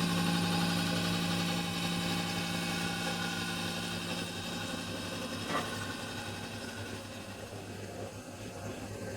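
A machine's motor running with a steady hum that slowly fades, with one short click about five and a half seconds in.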